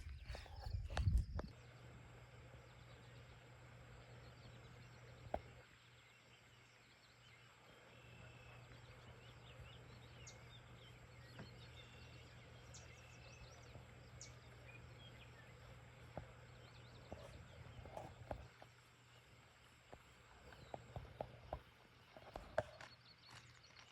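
Faint outdoor ambience: a low steady hum under a thin, high, steady tone, with scattered faint short chirps and light clicks and knocks. There is a louder rustling burst in the first second or so.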